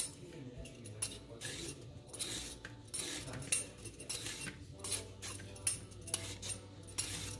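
Vegetable peeler scraping the skin off a large daikon radish in quick repeated strokes, about one or two scrapes a second.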